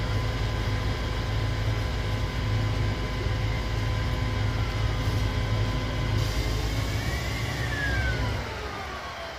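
Steady low rumble of vehicle engines running, which drops away sharply about eight and a half seconds in. A falling whine starts about seven seconds in.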